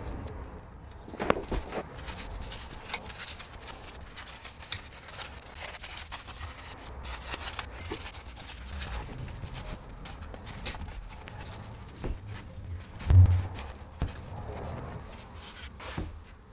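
Degreaser being sprayed, brushed and wiped off the aluminium case of a ZF6HP26 automatic transmission: irregular scrubbing and light knocks of tools and hands on the case, with one louder thump about 13 seconds in.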